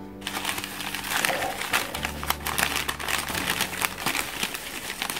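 Newspaper wrapping being pulled open and crumpled by hand, a dense crackling rustle of paper that starts a moment in and keeps going.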